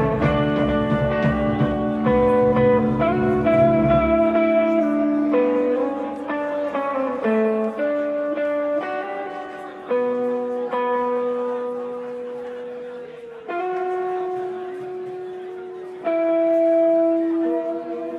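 Live rock band playing. About four seconds in, the drums and bass stop and a guitar carries on alone, striking a few sustained chords that are each left to ring and fade.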